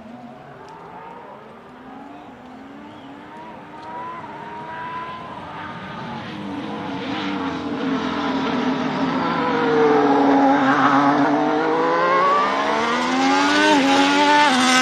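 Ferrari SF-23 Formula 1 car's turbocharged 1.6-litre V6 hybrid engine under way, getting steadily louder as it approaches. The engine note climbs, dips about ten seconds in, then rises again through quick upshifts near the end.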